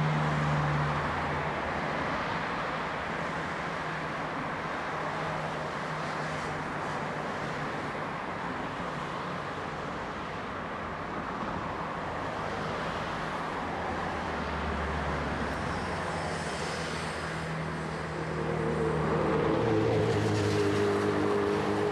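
Added soundtrack of a steady rushing noise under low sustained drone tones that shift in pitch, with a higher drone coming in near the end.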